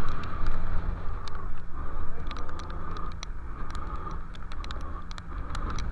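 Fishing boat's engine running steadily under wind noise, with scattered sharp ticks throughout.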